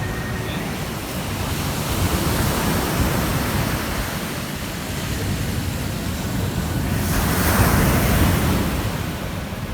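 Ocean surf: waves breaking and washing up the beach as a steady rushing noise, with one bigger wave swelling loudest about seven to eight seconds in.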